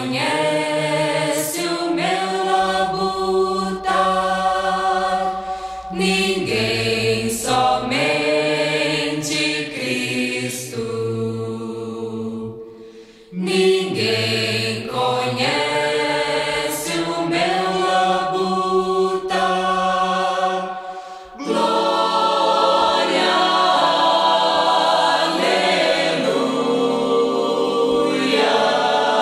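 Choir singing a Portuguese gospel hymn, phrase after phrase, with short breaks about 13 and 21 seconds in.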